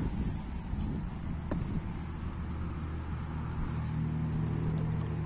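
A motor running with a steady low hum that grows stronger about halfway in, and a single light knock about a second and a half in.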